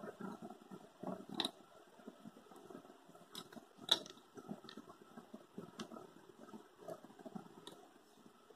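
Quiet rustling of paper with a scattering of small clicks and taps as a plastic ruler and pens are handled on a drawing pad; the loudest click comes about four seconds in.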